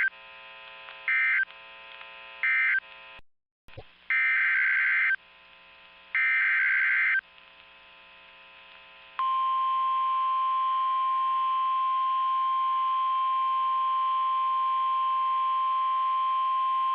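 NOAA Weather Radio alert signalling: three short buzzy SAME data bursts, then a brief dropout and two longer data bursts. About nine seconds in comes the steady single-pitch 1050 Hz warning alarm tone, which announces a new warning. A faint hum runs underneath from the radio receiver.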